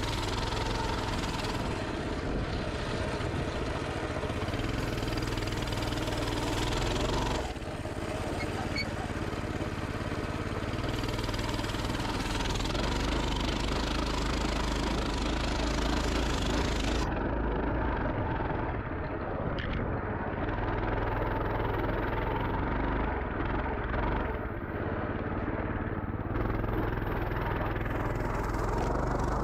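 Pit bike engine running steadily as the bike is ridden through deep snow, its sound dipping briefly about seven and a half seconds in and again about twenty-four seconds in. A hiss rides over it and falls away a little past halfway.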